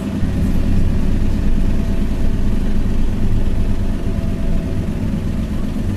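Airport apron bus's diesel engine running as the bus drives, heard from inside the passenger cabin as a steady low rumble.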